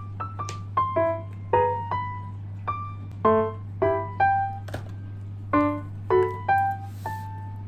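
Background music: a light, bouncy piano melody of short single notes, with a soft hiss like a shaker or cymbal near the end.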